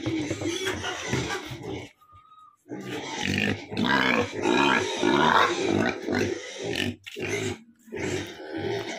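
Pigs grunting in repeated pulses, with a short pause about two seconds in. The calls grow louder and higher-pitched for a stretch around the middle.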